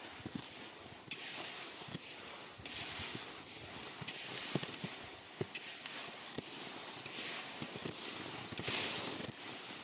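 A person walking: irregular footfalls with swishing, rustling noise coming and going between them.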